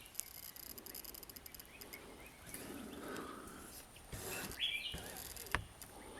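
Faint hide ambience: a fast high-pitched insect buzz, a single short bird chirp about two-thirds of the way through, and one sharp click shortly after.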